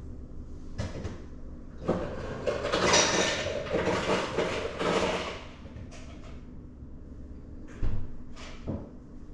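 Household knocks and thumps: one about a second in and two near the end, with a louder rushing, clattering noise lasting about three seconds in the middle.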